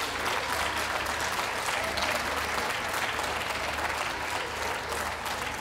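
Audience applauding steadily: many hands clapping together in a continuous, even spatter.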